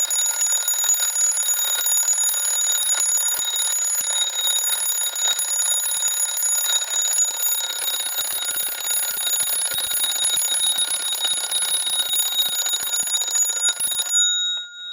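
Bell of a circa-1900 Gilbert wind-up alarm clock ringing continuously, its hammer striking fast with a bright, metallic ring. The ringing stops shortly before the end, and the bell rings on briefly.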